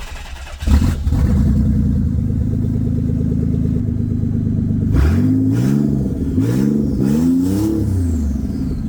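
Nissan 300ZX twin-turbo V6 (VG30DETT) running: it catches about a second in and settles into a steady idle, then is revved several times in short rising-and-falling blips from about five seconds in.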